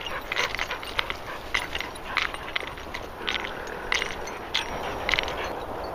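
Footsteps through grass and light metal clinking, a few short irregular clicks a second.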